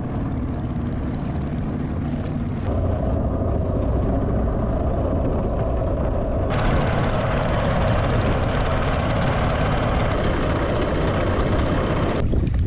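Wind buffeting the microphone in a steady low rumble, over water washing along a small wooden boat as it moves across the lake. The hiss gets brighter about six and a half seconds in.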